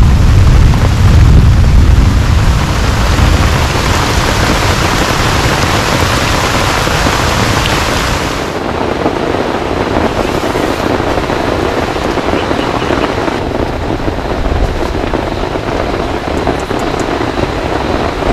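Heavy rain pouring down in a dense, steady hiss, with thunder rumbling low through the first couple of seconds. About eight and a half seconds in, the rain abruptly turns duller and lower.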